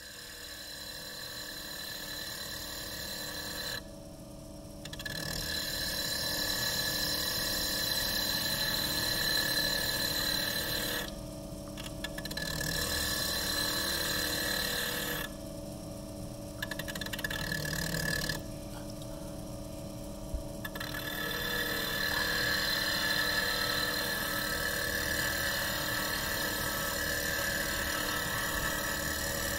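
Glass-engraving lathe running with a steady whine while a sheet of glass is pressed against its small spinning engraving wheel, grinding hollows into the glass. Four times the grinding drops out for a second or two as the glass comes off the wheel, leaving the lathe's hum.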